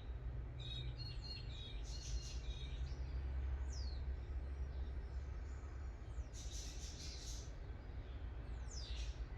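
Budgerigars chirping intermittently: a quick run of short chirps about a second in, a falling chirp near four seconds, a scratchy burst around six to seven seconds and a few falling chirps near the end, over a steady low hum.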